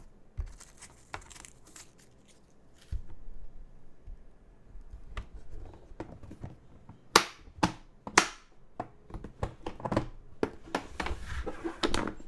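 Typing on an Ark68 R2 gasket-mount mechanical keyboard with an aluminium plate, JWK 02 switches and Key Kobo keycaps. The keystrokes are irregular clicks, with a few loud, heavier key strikes a little past the middle and a quick run of keystrokes near the end.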